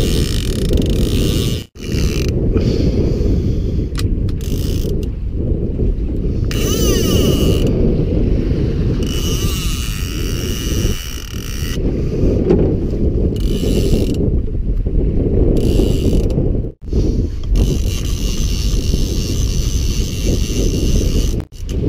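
Wind buffeting the microphone. A higher mechanical ratcheting comes and goes over it, with three brief sudden dropouts.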